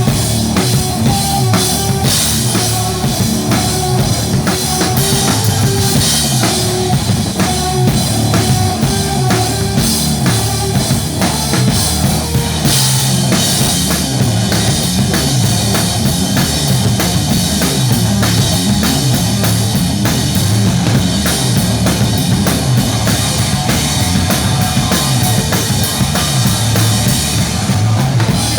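A band playing rock music, with a drum kit keeping a steady beat on kick and snare.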